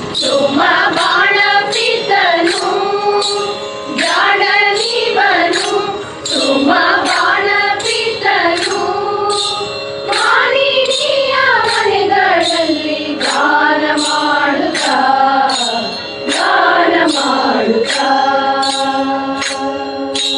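A group of women singing a devotional bhajan together in unison, with a crisp, high jingling beat about twice a second keeping time.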